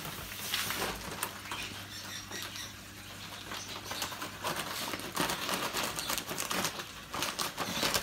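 Scissors snipping through the top of a paper bird-seed sack, with the sack rustling: a run of irregular crisp clicks and crackles, denser in the second half.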